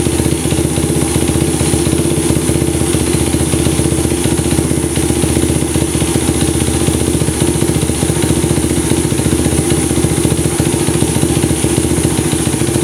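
Honda Ape's air-cooled single-cylinder four-stroke, bored up to 80cc with a high-lift cam, idling steadily through an OVER aftermarket muffler whose silencer-end baffle has been removed.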